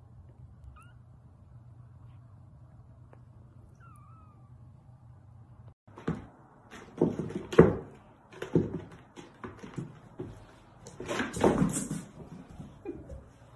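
A black kitten with the zoomies, running and pouncing: its paws thud and scrabble on a carpet-and-sisal scratcher and a wood floor in several loud clusters. This follows a few seconds of low steady hum.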